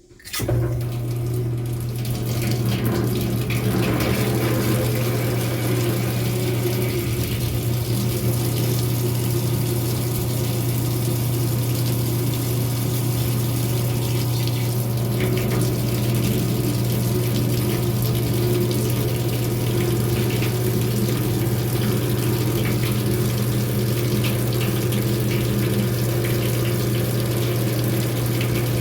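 Electric water pump switching on and running with an extremely loud, steady hum, water rushing and splashing from it into a tin bathtub.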